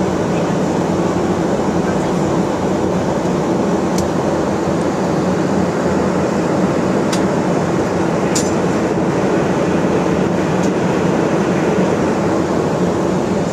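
Jet airliner cabin noise in cruise: the steady drone of the turbofan engines and the airflow past the fuselage, heard from a window seat beside the engine, with a few faint clicks.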